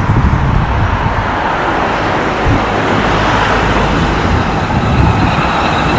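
Road traffic passing on a busy road: a steady rush of engines and tyres.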